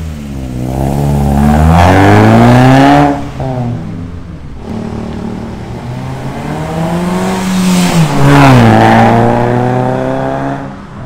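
Proton Persona's four-cylinder engine breathing through a new full stainless-steel 4-2-1 exhaust system and extractor, accelerating hard as the car drives off. The pitch climbs to a loud peak, drops sharply about three seconds in as it shifts up, climbs again to a second peak, drops again near the end and fades as the car moves away.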